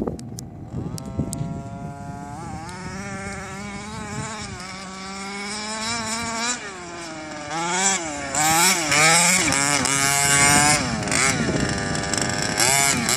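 HPI Baja 5B 1/5-scale RC buggy's small two-stroke petrol engine revving up and down again and again as it is driven over dirt. It grows louder from about eight seconds in as the buggy comes closer.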